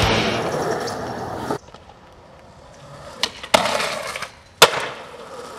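Skateboard on concrete: urethane wheels rolling, a few sharp clacks as the board is popped up onto a ledge, a stretch of scraping along it, then a loud slap about four and a half seconds in as it lands, and rolling again.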